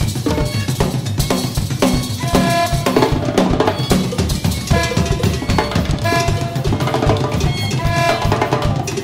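Instrumental jazz: a drum kit and hand percussion play a dense, steady rhythm, with a saxophone line over it.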